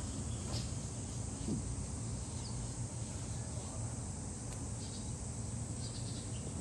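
Insects chirping in faint repeated bursts over a steady low background hum, with a couple of faint clicks.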